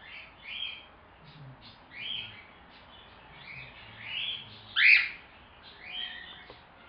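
Young cockatiel chirping: a string of short chirps, the loudest and sharpest about five seconds in.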